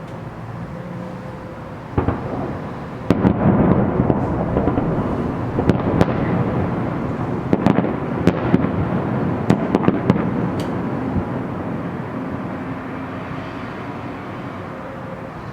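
Fireworks salute going off: a single sharp bang about two seconds in, then a quick run of bangs and crackling for about seven seconds over a rumbling echo that slowly dies away.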